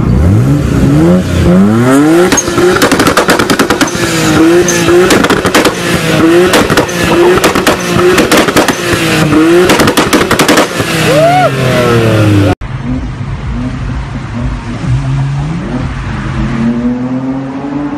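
Nissan Skyline R32 engine revved hard while parked, then blipped rapidly over and over, with the exhaust crackling and popping in quick volleys before the revs drop. After a cut about two-thirds of the way in, a quieter car engine accelerates, climbing in pitch.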